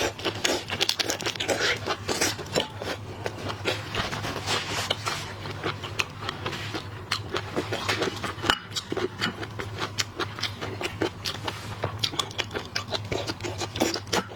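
Close-up eating of shellfish: a dense, irregular run of crackles and clicks as shells are cracked, peeled and chewed, over a low steady hum.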